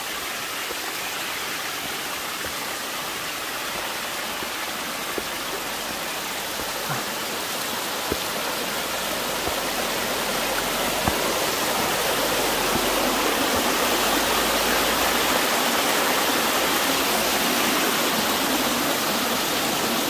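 Water of the Wedenbach brook rushing and splashing steadily down a tufa cascade waterfall, growing gradually louder over the second half.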